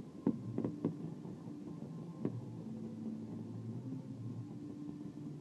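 Fireworks bursting: five sharp bangs in the first second and another about two seconds in, over a steady low background rumble.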